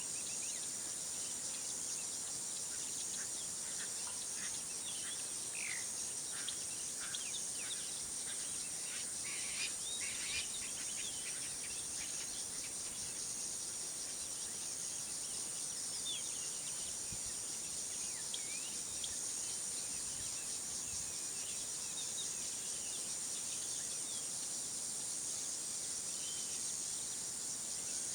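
Steady high-pitched drone of insects in the bush, with scattered short bird chirps over it.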